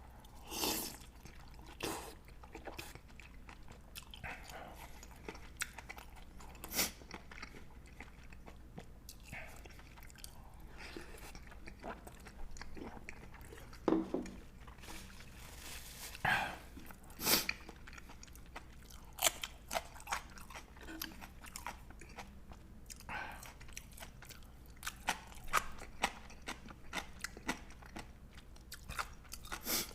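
Close-up eating sounds of ramen, dumplings and side dishes: chewing and biting with scattered crunches and wet mouth clicks, irregular and on and off.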